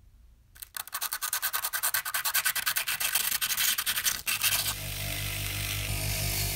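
A small rusty metal shaft is rubbed quickly back and forth on sandpaper, a fast run of rasping strokes. About four and a half seconds in, a power drill takes over and spins the shaft against the sandpaper: a steady motor hum under an abrasive hiss.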